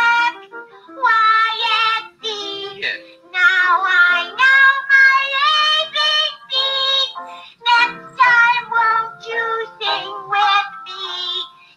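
A high, child-like voice singing the letters of the alphabet, one held note per letter with short breaks between them.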